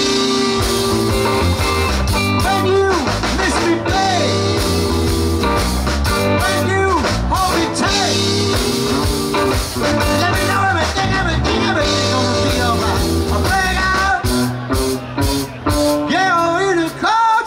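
Live rock band playing, with electric guitars and drums, and a man singing over them.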